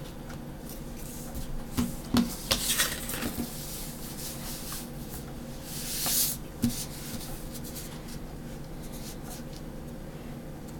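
A clear plastic ruler being handled and laid flat on drawing paper: a few light taps and clicks, then a brief rub as it slides across the paper about six seconds in, and a single knock just after, over a low steady hum.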